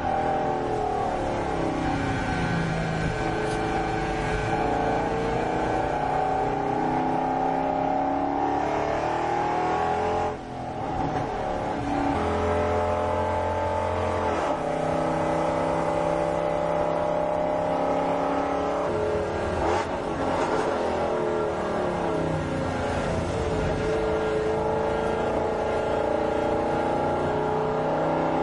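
Mercedes-Benz SL63 AMG's V8 engine heard from inside the cabin, driven hard on a track. Its pitch rises and falls repeatedly under acceleration and gear changes, and it dips briefly about ten seconds in.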